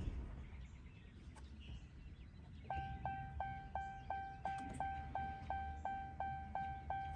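Ram 5500's Cummins 6.7 diesel dying away as it is switched off. About a third of the way in, the truck's dashboard warning chime starts, a steady series of identical beeps about three a second.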